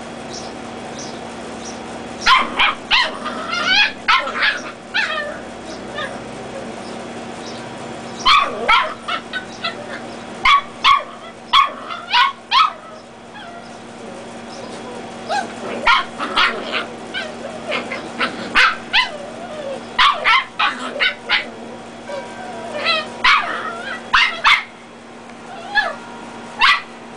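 Dachshund puppies yapping and barking in high-pitched flurries while play-fighting, with short pauses between the flurries. A steady low hum runs underneath.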